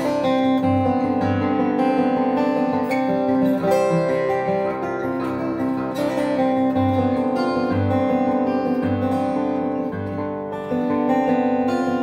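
A 1994 Taylor 420-R steel-string acoustic guitar played solo, fingerpicked: ringing melody notes over low bass notes that sound about once a second, with a brief softer moment near the end.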